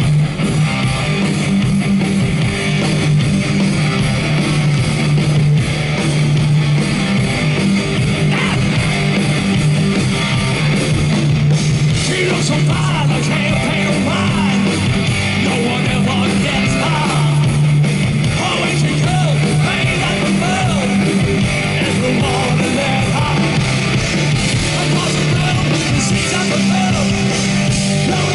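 Heavy metal band playing live and loud: distorted electric guitars, bass guitar and drums, with a singer's voice over them, heard from within the crowd.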